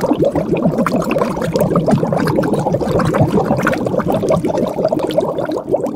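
Dense water bubbling: a rush of many small bubbles gurgling at once, each a quick blip gliding in pitch.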